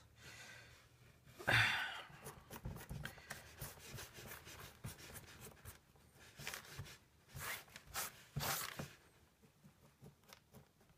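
Faint rustling and crackling of damp shredded worm bedding being sifted and turned over by hand on a plastic sheet, in short scattered bursts, the loudest about a second and a half in.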